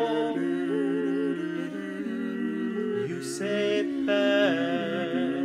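A cappella vocal quartet of one woman and three men singing sustained close-harmony chords without words. Brighter voices come in about three and four seconds in.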